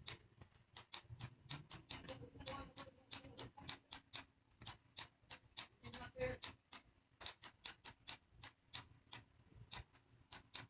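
Computer mouse clicking over and over at an irregular pace, several sharp clicks a second, as items are selected and dragged on screen.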